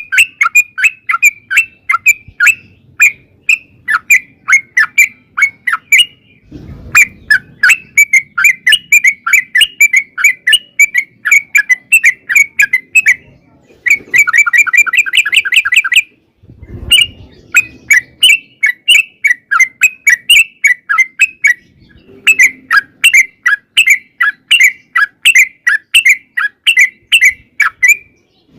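Yellow-vented bulbul (trucukan) calling in long, rapid runs of short chattering notes, about three or four a second. The runs are broken by a few brief pauses, and one denser, faster run comes about halfway through.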